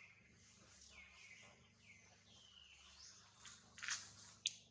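Faint background bird calls: quick whistles that slide down in pitch, repeating about once a second. A short noisy burst and then a sharp click stand out near the end.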